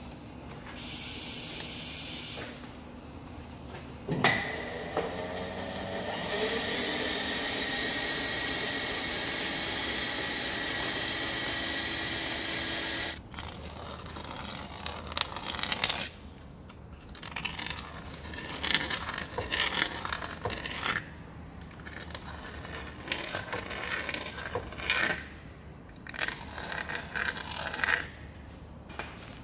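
Hand deburring tool scraping the machined edges of a steel hydraulic cylinder head in short, irregular strokes. Before that, a sharp knock starts a steady rushing noise that runs for about nine seconds and cuts off suddenly.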